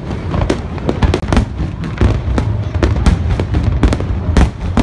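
Aerial fireworks going off in a dense barrage: many sharp bangs and crackles a second over a steady low rumble of booms.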